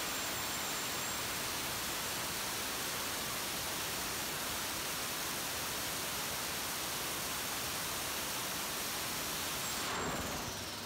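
Turbocharged 4.8-litre LS V8 running hard on an engine dyno: a steady, dense rushing roar with no clear pitch. Near the end the roar drops off and a high turbo whine begins to fall in pitch as the engine comes off load.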